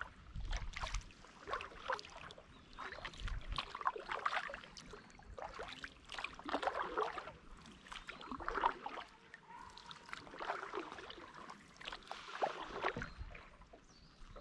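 Kayak paddle strokes: the blade dipping and pulling through lake water with irregular splashes and drips, about one every second or so.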